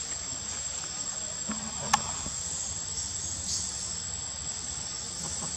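Steady high-pitched drone of insects, with a single sharp click about two seconds in.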